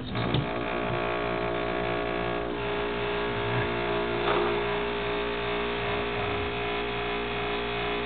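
A 10-year-old refrigerator's compressor starting the moment it is plugged in, then running with a loud, steady hum of many tones. The compressor is failing and on its last leg; the owner calls this sound a death rattle.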